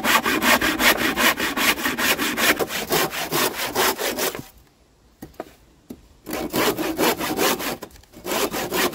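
Handsaw cutting a block off the end of a wooden batten, with quick back-and-forth strokes about four a second. The sawing stops about four and a half seconds in and starts again after a short pause.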